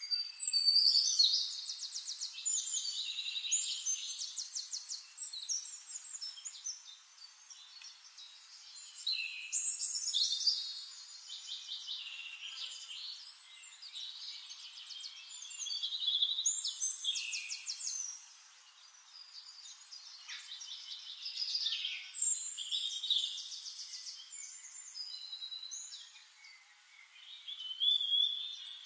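Songbirds singing: phrases of high, rapid trills and chirps that come and go every four to six seconds.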